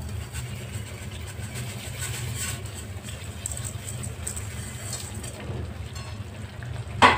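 Water at a rolling boil in a wide pan, a steady low rumble. Just before the end there is one sharp, loud knock.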